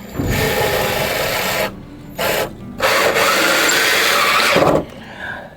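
Power drill driving screws into wood: two long runs of about a second and a half to two seconds each, with a short blip between them.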